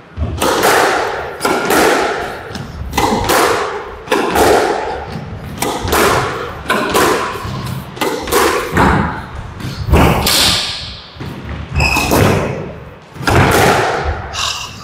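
A squash rally: the ball is struck by rackets and thuds off the court walls about once a second, each hit echoing briefly.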